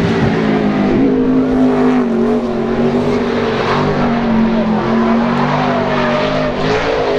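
NASCAR truck's V8 engine running hard on a qualifying lap of a half-mile dirt oval, one truck alone on the track. Its pitch dips and rises again as it goes through the turns.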